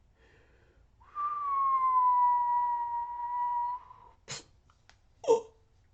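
Mouth-made sound effect of a man getting shot: a whistled tone held for nearly three seconds, settling slightly lower after it starts, then two short, sharp mouth sounds about a second apart.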